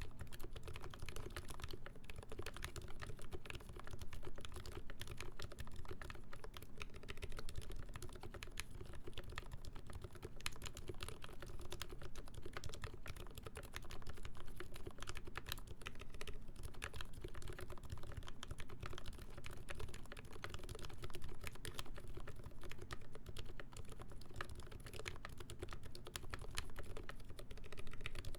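Continuous fast typing on a mechanical keyboard with lubed ZealPC Roselios switches, a full brass plate and GMK ABS keycaps: a steady stream of keystroke clacks.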